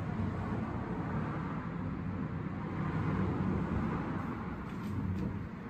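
Triumph America's 865cc parallel-twin engine idling steadily.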